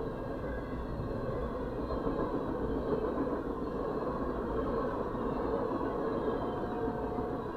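Freight train of hopper cars and tank cars rolling past, a steady noise of steel wheels running on the rails.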